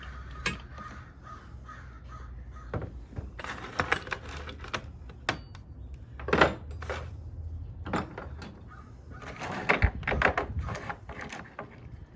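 Loose pieces of scrap brass and metal lugs clinking and knocking as they are handled and set down, a string of irregular sharp clicks with a few louder clatters.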